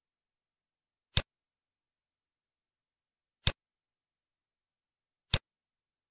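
Three sharp computer mouse clicks, about two seconds apart, with dead silence between them.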